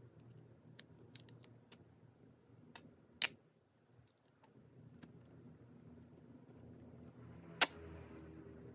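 Hands packing items: scattered light clicks and taps, with two sharp clicks close together about three seconds in and one louder click near the end, over a steady low hum.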